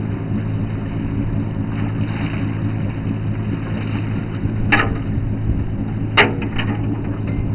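A fishing boat's engine running steadily with a low hum. Two sharp knocks sound over it in the second half.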